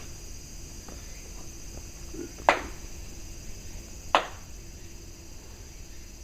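Two sharp hand claps about a second and a half apart: the ritual clapping of a Shinto shrine prayer, done to call the gods before making a wish.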